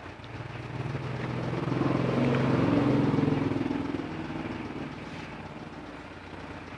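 A motor vehicle passing by: its engine grows louder over about two seconds, peaks near the middle, drops slightly in pitch and fades away.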